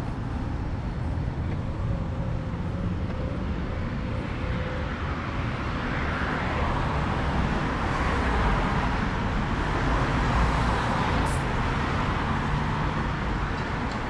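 City street traffic noise: a steady hiss of passing cars that swells in the middle as vehicles go by and eases off near the end.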